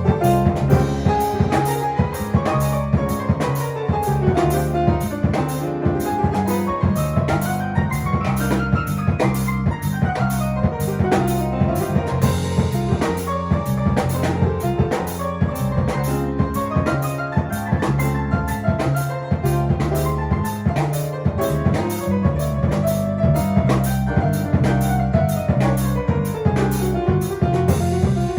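Latin-style instrumental music played live: a drum kit keeps a busy groove over a repeating bass line, while a melodic instrument plays quick runs that climb and fall again several times.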